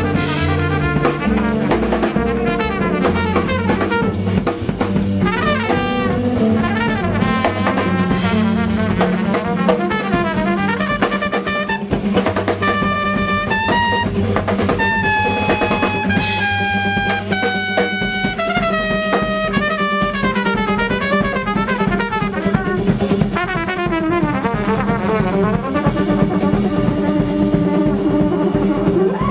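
Jazz trumpet soloing over drum kit and bass in a 9/8 groove. The trumpet plays quick runs of notes, with a stretch of longer held notes around the middle.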